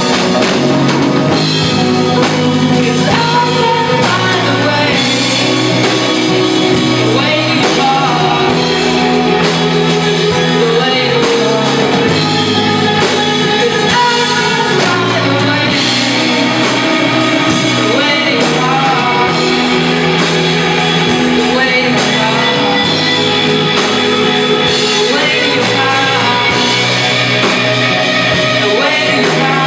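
Music: a band playing a rock-style song with guitar, loud and steady throughout.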